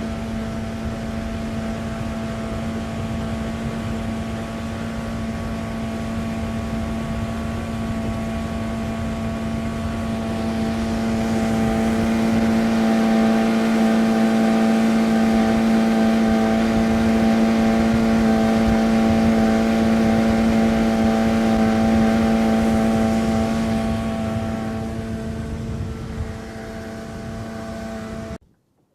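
Boat engine running at a steady pitch, growing louder about a third of the way in and easing back near the end. The sound cuts off suddenly just before the end.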